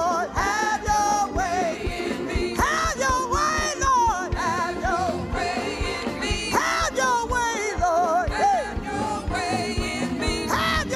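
Live gospel music: a group of women singing in wavering, sliding lines over a band with a regular drum beat.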